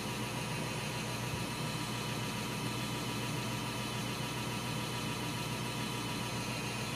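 Steady low hum and hiss with no distinct events: background room or recording noise.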